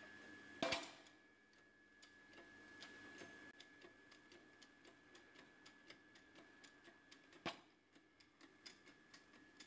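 A hydraulic shop press pushing the worn bearing out of an air-con compressor pulley: faint and near silent, with a sharp click about a second in and another near the end, and from about three seconds on a run of faint ticks, two or three a second.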